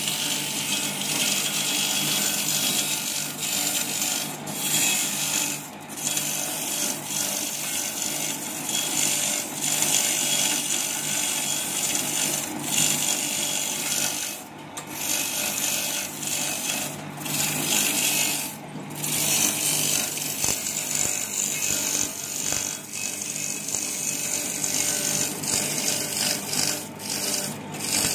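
Skewer sharpening machine running, its high-speed disc grinding points onto wooden satay skewers fed through it: a continuous rasping hiss over a steady motor hum, easing off briefly a few times.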